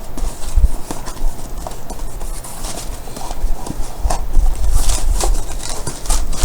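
A cardboard parcel being opened by hand: irregular knocks and bumps from handling the box, with tearing and rustling of packing paper about two thirds of the way in.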